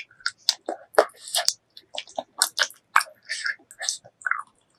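Close-miked chewing of spicy pork leg curry with rice: many quick, irregular wet smacks and sticky mouth clicks.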